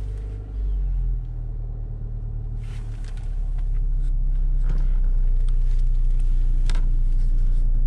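Toyota Corolla Touring's engine idling just after start-up, heard from inside the cabin as a steady low hum that grows louder about halfway through, with a few light clicks.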